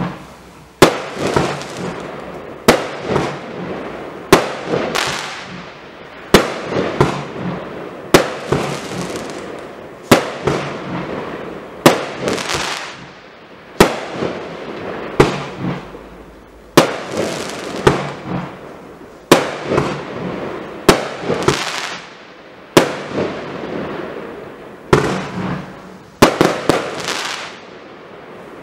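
Black Scorpion CLE4127 "Šašo" 16-shot, 30 mm consumer fireworks cake firing shot after shot, about one every one and a half to two seconds. Each shot is a sharp bang with a fading tail, and near the end two shots come close together.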